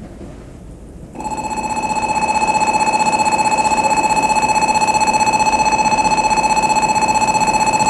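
Station platform warning alarm for an approaching Shinkansen train: a loud, high ringing tone with a rapid, even flutter starts suddenly about a second in and holds steady, over a faint hiss of rain.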